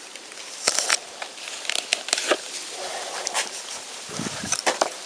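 Close handling noise: irregular rustles and sharp clicks as a leather knife sheath is handled in front of a hand-held camera.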